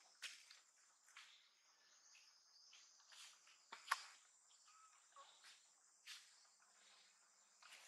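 Faint, steady high-pitched insect chirring, with scattered soft clicks and rustles and one sharper click about four seconds in.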